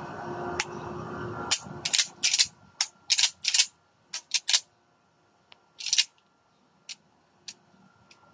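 Pump-action shotgun being handled and its action worked by hand: a run of sharp metallic clacks, several in quick pairs, over the first half, one more clack a little later, then a few light clicks. A steady background rumble cuts out about a second and a half in.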